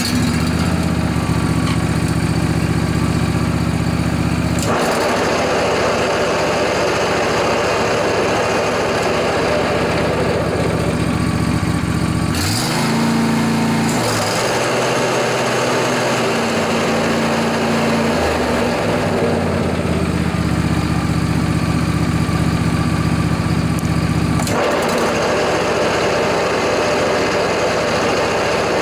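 John Deere LA145 riding mower's Briggs & Stratton twin engine running with the blades engaged, the deck making a loud noise from worn deck spindle bearings. The engine speed is changed several times, with a glide in pitch about twelve seconds in; the bearing noise sounds worse at lower revs.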